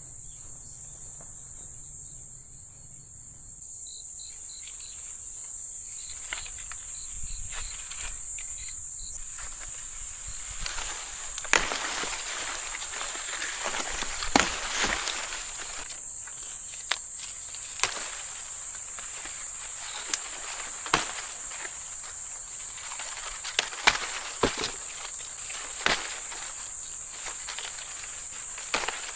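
Insects, crickets among them, keep up a steady high trill, with scattered sharp knocks and scuffs of footsteps and digging in soil, coming more often from about ten seconds in.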